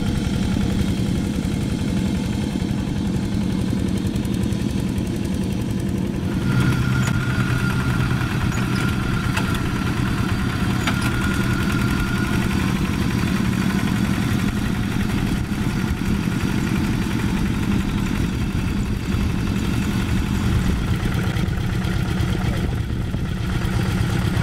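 Single-cylinder diesel engine of a two-wheel hand tractor running steadily under load as it pulls a plough through wet paddy mud. A faint thin whine sits over it for several seconds in the middle.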